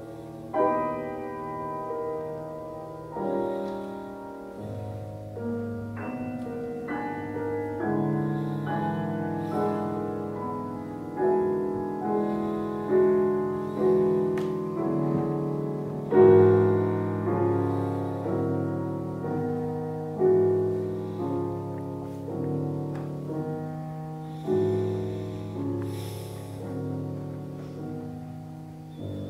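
Concert grand piano played solo in a classical piece: chords struck every second or two and left to ring, loudest about halfway through.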